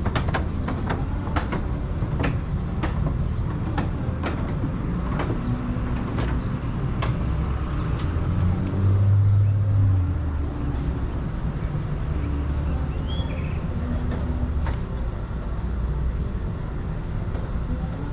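Low, steady motor-vehicle rumble that swells briefly about nine seconds in, with a few sharp clicks near the start.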